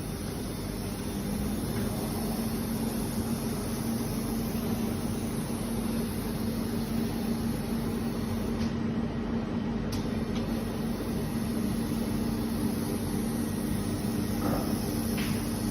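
Automatic laser welding machine running with a steady hum, welding a bearing. It carries a constant low tone that grows a little stronger about a second in, with a couple of faint ticks near the end.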